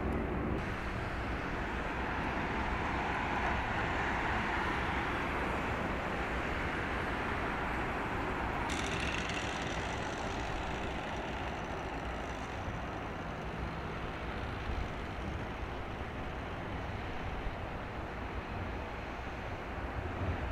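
Steady vehicle noise: a low rumble under a broad hiss that swells over the first several seconds and eases off after about nine seconds.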